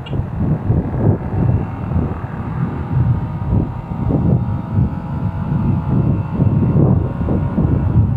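Wind buffeting the microphone of a moving motorcycle, with the motorcycle's engine running steadily underneath.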